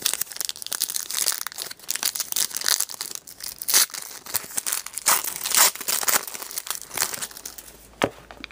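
Crinkling and tearing of a trading-card pack wrapper being handled and opened, a dense run of quick rustles and rips.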